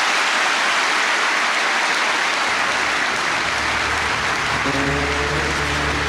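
Large audience applauding, a dense, steady clapping. Music with low held notes comes in under it about halfway through.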